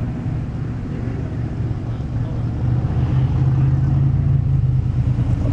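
Low engine rumble of classic cars rolling slowly past in a parade, growing louder about three seconds in as the next car approaches.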